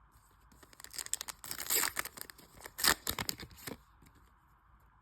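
Foil Pokémon booster pack wrapper being torn open and crinkled: a run of rapid crackling tears lasting about three seconds, loudest near the end.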